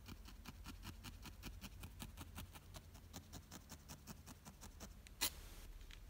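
Felting needle stabbing repeatedly through wool roving into a felt ball and foam mat: a fast, even run of faint soft taps, about five a second, with one sharper click about five seconds in.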